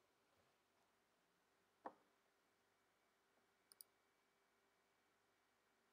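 Near silence, broken by one soft knock about two seconds in and, a little later, a faint computer mouse click in two quick parts, press and release, as the mouse is right-clicked.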